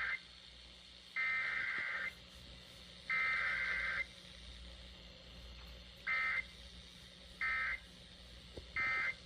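Emergency Alert System SAME digital data tone bursts. The coded header ends with its three bursts of about a second each, about a second apart, and after a short gap come the three short end-of-message bursts. It is a weekly test, sent without the long attention tone.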